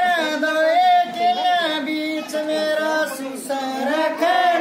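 A woman singing a folk song without instruments, holding long, slightly wavering notes, with short breaks between phrases.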